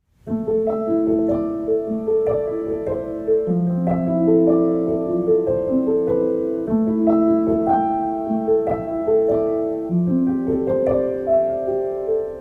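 Background music: a gentle piano melody of sustained notes.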